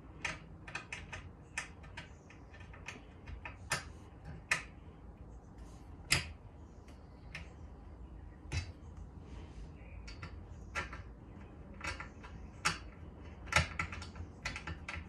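Irregular sharp metal clicks and clinks, about two a second, from hands and a small hand tool working the steel bars and bracket of a TV mount stand being assembled.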